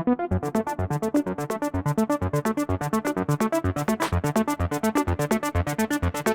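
Electronic background music: a synth pattern of short, rapidly repeating notes over a steady beat, with no vocals.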